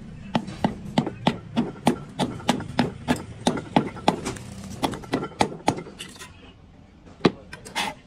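Hammering: a run of sharp, evenly spaced strikes, about three a second, that stops about six seconds in, followed by two more strikes near the end.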